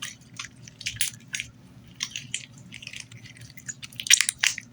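Hands squishing and poking a jiggly slime, giving an irregular run of short wet clicks and small pops, with a busier cluster near the end.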